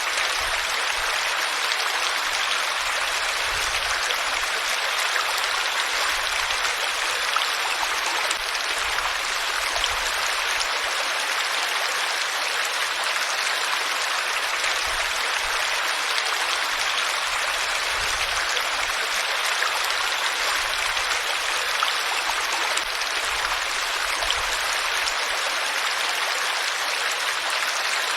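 Water flowing steadily, a constant rushing and splashing hiss with no change in strength.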